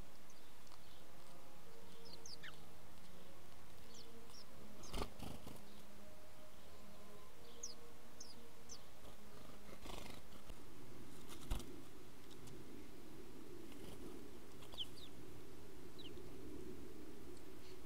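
Small birds chirping in short, thin, high notes now and then over a steady low background hum. A few sharp clicks stand out about a third of the way in and twice around two thirds of the way in.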